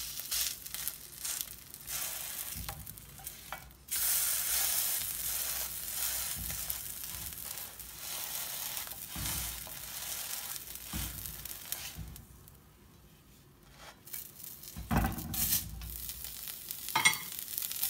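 A chana dal kebab sizzling on a hot tawa, with a spatula scraping and clicking against the griddle. The sizzle is steady and loudest through the middle, dies away briefly, then more spatula scrapes and taps follow as the kebab is lifted off.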